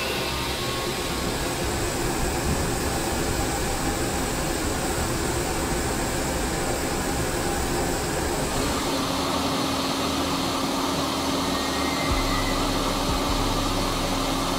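Steady industrial noise of a steel plant's melt shop, an even rushing hiss. About nine seconds in it changes to a machine hum with a steady low drone.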